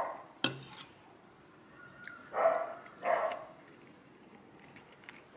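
A dog barks twice in quick succession, about two and a half seconds in, with a sharp click shortly before.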